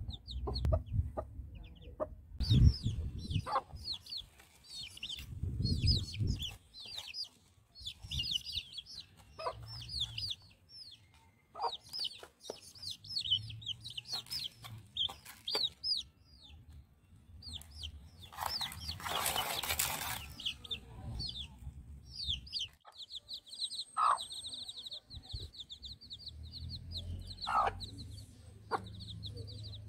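Chicks peeping in quick, high, constant chirps, with a hen giving short clucks now and then. A brief rustle comes about two-thirds of the way through.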